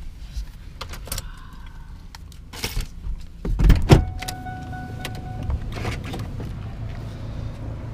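Sounds of someone climbing out of a parked car: scattered clicks and knocks of handling. A heavy thump comes a little before the middle as the door swings open. Then a steady electronic tone is heard for about a second.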